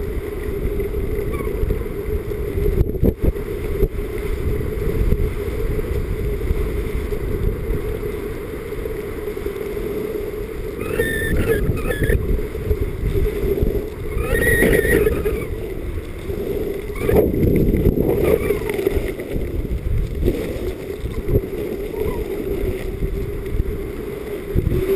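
Skis sliding and scraping over packed snow during a fast downhill run, with wind rushing over the camera microphone; the rushing swells louder a few times, around the middle of the run.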